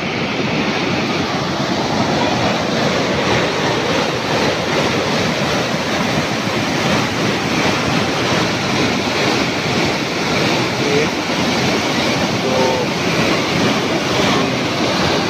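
Canal water pouring over a concrete weir and churning into foam below: a loud, steady rush of falling water.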